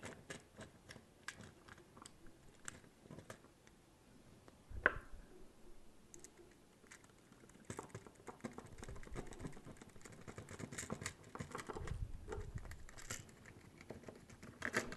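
Faint small clicks and taps of metal screws and a screwdriver being handled against white plastic parts, with one louder click about five seconds in. From about eight seconds the clicking and scraping grows denser as a screw is turned in with the screwdriver.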